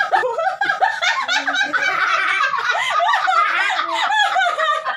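Two women laughing hard together, high-pitched and without a break.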